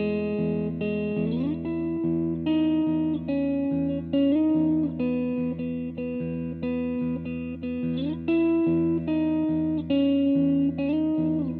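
Electric guitar, a Fender Stratocaster played through a Line 6 POD, in an instrumental passage. It plays held, ringing notes over a steady pulse of lower notes, and every few seconds a note glides up or down in pitch into the next.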